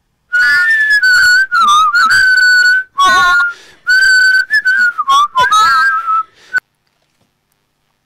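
A person whistling a short tune in several phrases with brief breaks, the pitch bending up and down, stopping abruptly about six and a half seconds in.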